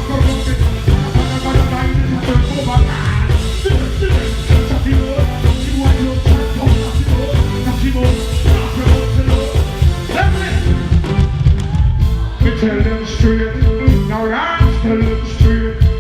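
Live reggae/dancehall band music with a heavy, pulsing bass beat and a singer's voice over it.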